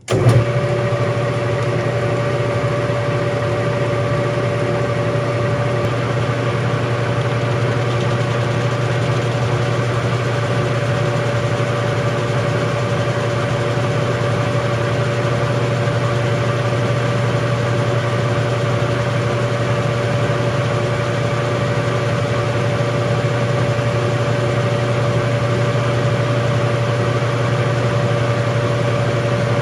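Metal lathe switched on and running steadily, its motor and headstock gearing giving a constant hum with a steady whine above it. It comes up suddenly right at the start.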